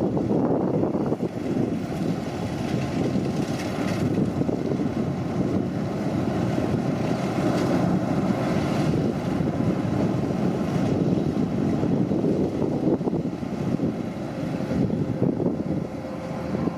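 A machine's engine running steadily, a continuous low rumble with no change in pace.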